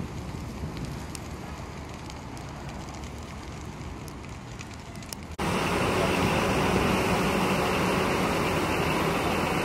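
Stacks of wooden pallets burning: a low rumble with scattered sharp crackling pops. About five seconds in, a cut brings in a much louder, steady rushing noise.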